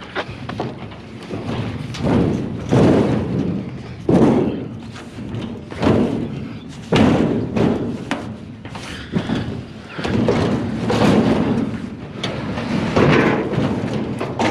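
Sheet-metal filing cabinet being shoved and tipped onto a trailer's wooden deck, giving a series of heavy thuds and bangs with short scraping between them, about one every second or two.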